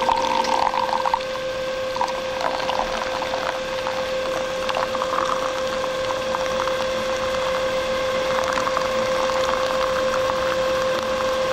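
Liquid pouring into a cup, with scattered crackling, over a steady hum.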